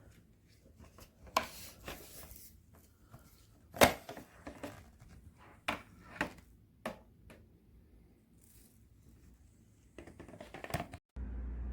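A series of sharp clicks and knocks with light rustling, as of something being handled, loudest about four seconds in. Near the end it cuts abruptly to a steady low hum.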